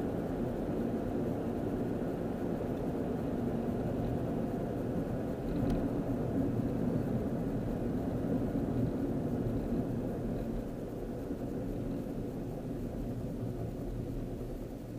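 Steady engine and road noise inside a moving car's cabin, a low rumble with tyre hiss, easing off a little about two-thirds of the way through as the car slows toward a red light.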